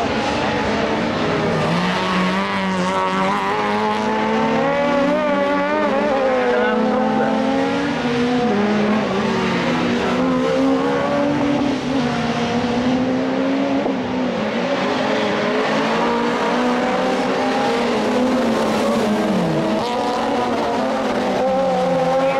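Several Super 1600 rallycross cars with 1.6-litre four-cylinder engines revving hard as they race, their engine notes overlapping. The pitch keeps rising and falling with throttle and gear changes.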